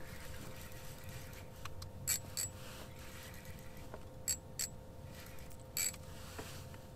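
Spinning reel on an ice-fishing rod being reeled in, a faint mechanical ticking of its gears. Over it come short sharp clicks: two pairs about a third of a second apart around the middle, and a single one near the end.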